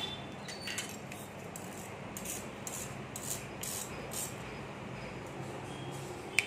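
Fingers and fingernails rubbing and scraping the skin off a boiled potato on a steel plate: a run of short scratchy strokes, with a single sharp click near the end.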